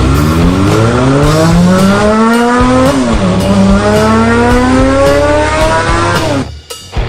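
A car engine accelerating, its pitch rising in two long pulls with a brief drop between them like a shift up a gear, then cutting off suddenly near the end.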